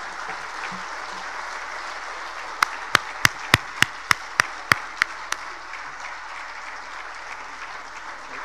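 A roomful of people applauding steadily. From about two and a half to five and a half seconds in, about ten loud, sharp claps close by stand out at roughly three a second.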